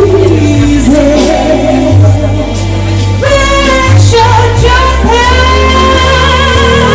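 A woman singing jazz live into a microphone with band accompaniment and a bass line underneath; she glides between notes, then holds one long note with vibrato from about five seconds in.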